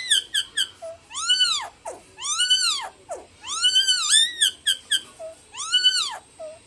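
Common myna (shalik) calling: a series of about five squeaky, drawn-out calls, each rising then falling in pitch, with short chirps in between.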